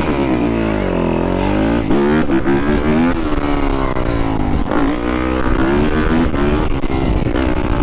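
Yamaha dirt bike engine revving hard through a wheelie, its pitch swinging down and up several times as the throttle is worked.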